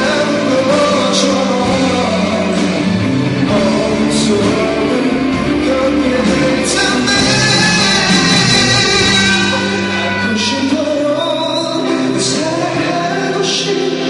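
A man singing live into a handheld microphone over band accompaniment, in a sung pop song.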